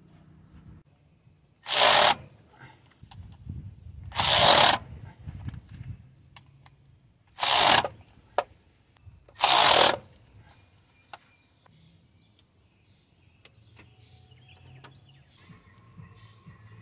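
Handheld power tool run in four short bursts of about half a second each, driving the bolts on a GM 4.2-litre engine's water pump, with faint clicks between the bursts.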